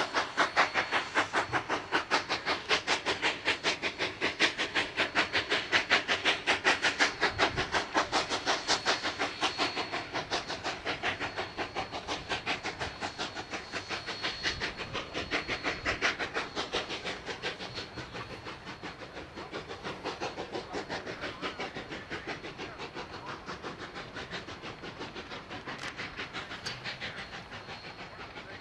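Cumbres & Toltec K-36 No. 484, a narrow-gauge 2-8-2 steam locomotive, working steam with a rapid, even beat of exhaust chuffs. The chuffs fade gradually as the train moves away.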